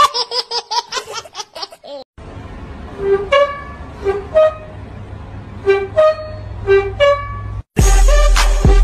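A baby crying in quick, rhythmic sobs. Then a series of short two-note toots over a steady low hum, and loud music starts near the end.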